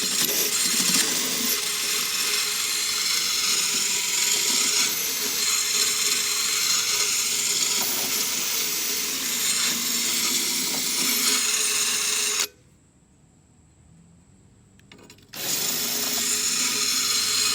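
Power drill spinning a knife-sharpening stone attachment that grinds against a steel lawnmower blade: a loud, even grinding that runs for about twelve seconds, stops, and starts again about three seconds later.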